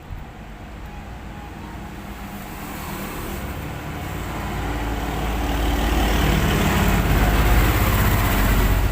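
A road vehicle's engine passing close by, swelling steadily louder over several seconds and peaking near the end.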